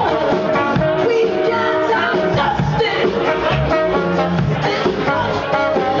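Live band playing Haitian music, with congas and a drum kit keeping the beat under saxophone and a singer's voice.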